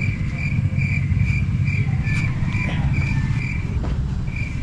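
Steady low rumble, like a motor running, with a short high chirp repeating evenly about twice a second, like an insect.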